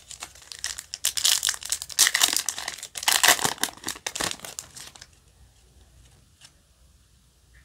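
Shiny foil wrapper of a Yu-Gi-Oh! booster pack crinkling and tearing as it is ripped open by hand, from about a second in until about five seconds in.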